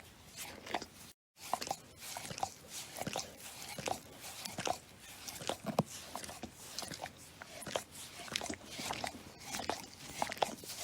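Dog licking itself: irregular wet licking and slurping smacks, several a second, with a brief silent gap about a second in.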